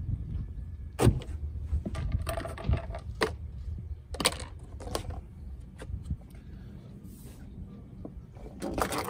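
Wind rumbling on the microphone, with several sharp knocks and clicks of rope and rigging hardware being handled at a sailboat's mast, and a short creak about two seconds in.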